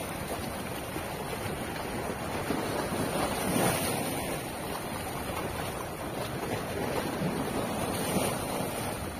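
Small sea waves washing and splashing against shoreline rocks, with wind rumbling on the microphone. The wash swells a little louder a few seconds in and again near the end.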